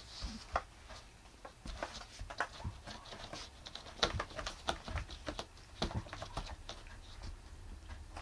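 A cat clawing, rubbing and biting at a corrugated cardboard scratcher, making irregular scratchy clicks and crackles several times a second. The cat is worked up by silver vine (matatabi).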